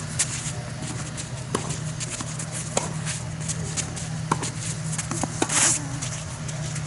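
Tennis rally: sharp pops of the ball off the rackets and its bounces on the court, with shoes scuffing the green clay surface. A brief scraping slide of feet on the clay comes near the end, over a steady low hum.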